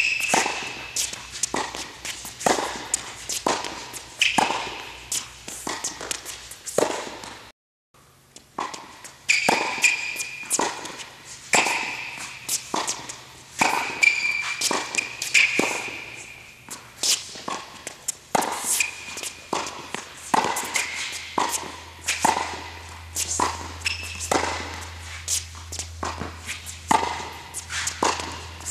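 Tennis rally on an indoor hard court: repeated sharp racket-on-ball strikes and ball bounces, with short squeaks of tennis shoes on the court surface between them. The sound cuts out briefly about seven and a half seconds in.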